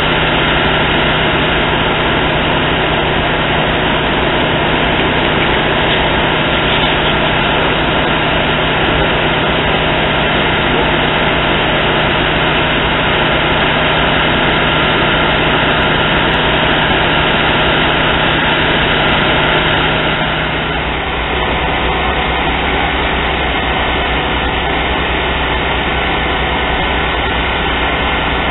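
Fire apparatus diesel engines and pumps running at a steady high idle, a loud even drone that feeds the aerial ladder's water stream. About twenty seconds in the drone changes, losing a tone and settling lower.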